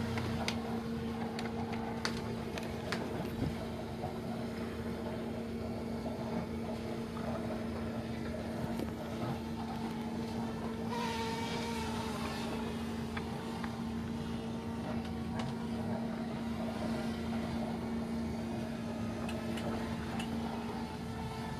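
A steady motor hum holding one constant pitch, over a background of noise, with a brief rush of hiss about eleven seconds in.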